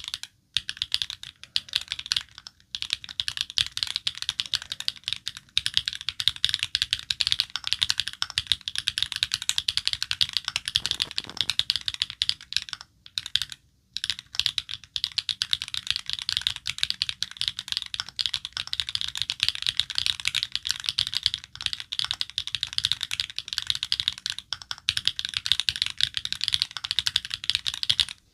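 Fast, continuous typing on a Tomak79 custom mechanical keyboard: rapid key clacks with a few short pauses, the longest about 13 seconds in.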